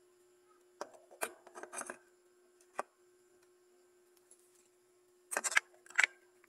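Clear plastic electric-fan blade being handled and fitted onto the motor hub: scattered sharp plastic clicks and knocks, the loudest in a quick cluster past five seconds in, over a faint steady hum.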